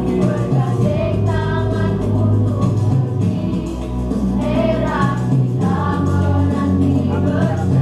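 School choir singing together over steady instrumental backing.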